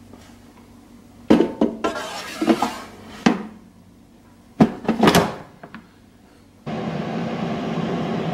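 Plastic basket of a Power XL air fryer knocking and clattering as it is handled and slid into the unit, with a few sharp knocks as it seats. About two-thirds of the way in, the air fryer's fan switches on and runs with a steady whir.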